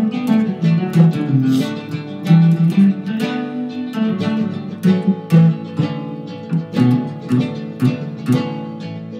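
Acoustic guitar music: a fast run of plucked notes with some strummed chords.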